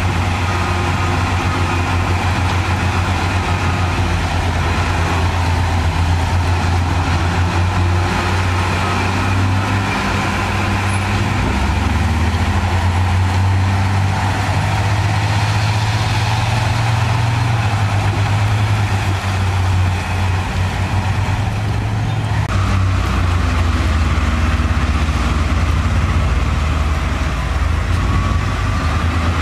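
Heavy diesel earthmoving machinery running steadily with a strong low engine hum. The engine note shifts about twelve seconds in and again about twenty-two seconds in, as the revs change.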